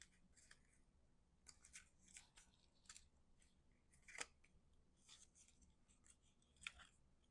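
Faint rustling and light clicks of cardstock being handled as a paper tab is worked through a slit, with a sharper click about four seconds in and another near the end.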